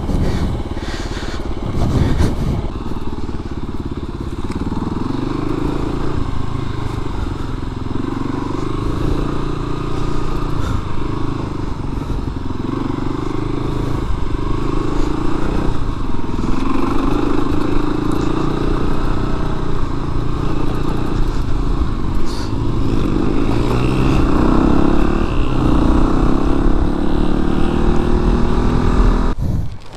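1998 Kawasaki KLR250's single-cylinder four-stroke engine running under way, its pitch climbing and dropping again and again as the throttle is worked and gears are changed.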